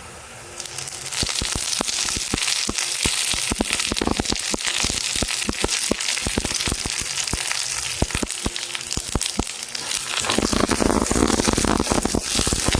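Fresh curry leaves dropped into hot oil, spitting and crackling with rapid sharp pops. About ten seconds in the popping gives way to a denser, steady sizzle.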